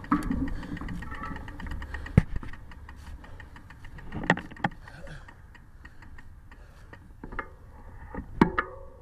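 Bicycle riding up a dirt trail covered in dry leaves: the tyres rumble and crunch over the leaves and the bike rattles. There are a few sharp knocks, the loudest about two seconds in, another around four seconds, and one near the end.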